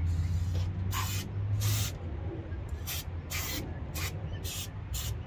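A spray nozzle giving about eight short, quick hissing squirts, as from an aerosol can or an air blow nozzle, over a steady low hum.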